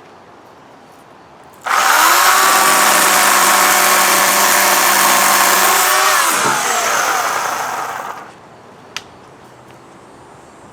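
Electric chainsaw switching on about two seconds in and running at a steady high speed for about four seconds. Its pitch then drops and the sound fades away over the next two seconds, with a single click about a second later.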